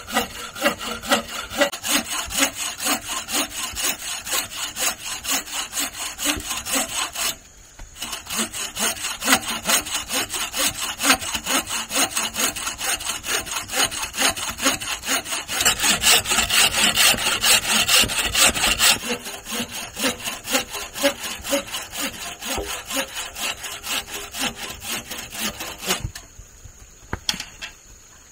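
Hand saw cutting wood in quick back-and-forth strokes, about three a second, with a short pause about a quarter of the way in; the sawing stops near the end.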